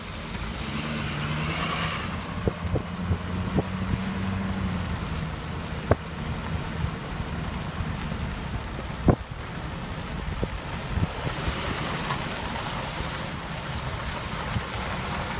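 Wind buffeting the microphone over a low, steady hum. Several sharp clicks or knocks break through, one about six seconds in and another about nine seconds in.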